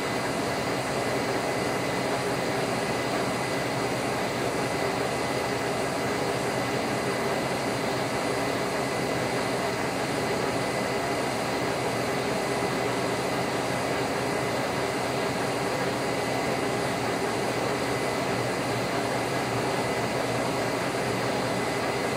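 Lucas 41 horizontal boring mill running steadily, its spindle turning a boring bar through a cast steel workpiece at about 77 rpm: an even machine hum with a faint high whine.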